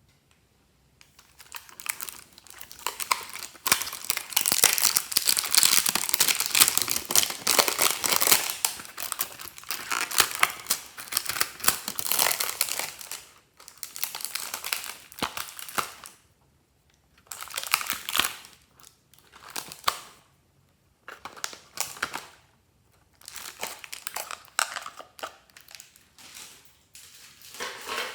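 Crinkling and crackling of something being handled and crushed. It runs continuously for the first half, then comes in short bursts of a second or two with brief pauses between them.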